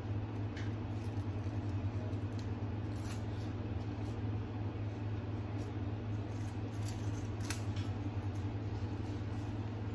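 A steady low mechanical hum, with a few faint light clicks.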